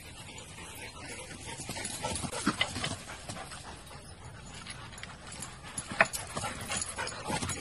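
Dog giving a few short, sharp yelps, the loudest about six seconds in.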